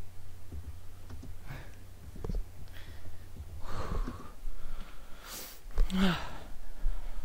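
Close breaths and sniffs into a microphone, with a few soft knocks and a brief voice sound about six seconds in, over a low steady hum.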